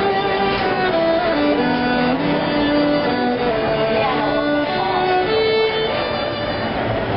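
Music led by a violin, playing a slow melody of held notes that step up and down in pitch.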